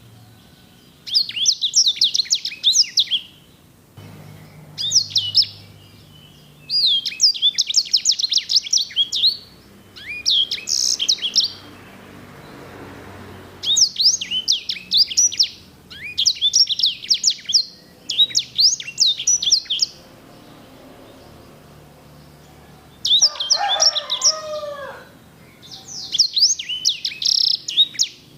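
A sanger (edel/herda sanger finch) singing: phrases of fast, rolling, high trills about one to two seconds long, repeated after short pauses. One phrase about three quarters of the way through drops to lower, sliding notes.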